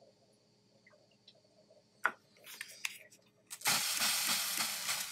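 Hot, freshly soldered fork metal sizzling as water hits it, giving off steam: a loud, even hiss that starts about three and a half seconds in. Before it there is a sharp click about two seconds in and a few light taps.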